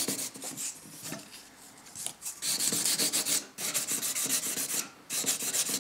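Nail buffer block rubbing across a fingernail in quick back-and-forth strokes, several a second, with a few short pauses: buffing off the nail's natural shine to prepare it for a repair.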